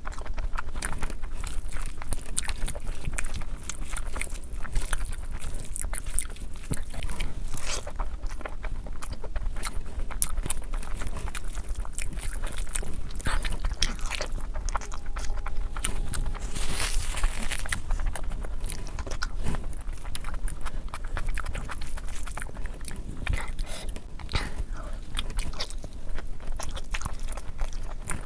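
Close-miked chewing and eating sounds of a person eating meat curry with rice, made up of many short mouth clicks. A longer noisy sound comes about seventeen seconds in.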